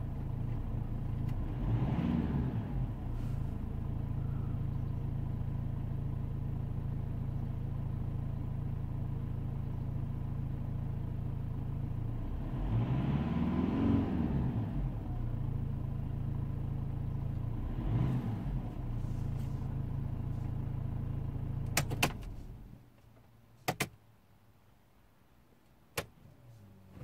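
Mercedes E250's 2.2-litre four-cylinder diesel idling, heard from inside the cabin. It is revved up to about 2,800 rpm and back around 13–15 seconds in, with smaller blips at about 2 and 18 seconds. It is switched off about 22 seconds in, and a few sharp clicks follow.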